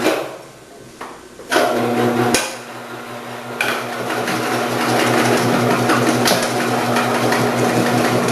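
Electric vegetable cutting machine: a knock, then the motor starts about a second and a half in with a steady hum. From about three and a half seconds, cucumbers fed down the chute onto the 8 mm cutting disc add a dense cutting noise over the hum.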